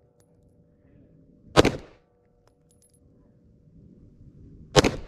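Two pistol shots from a Glock about three seconds apart, each a sharp crack with a short tail. They are slow, repeated shots at a target that keeps being missed.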